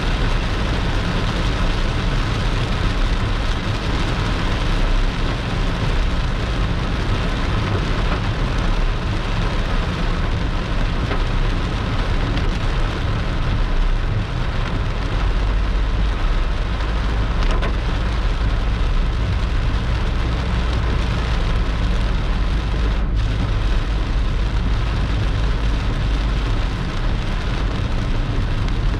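Heavy rain pouring down steadily, with a low rumble underneath.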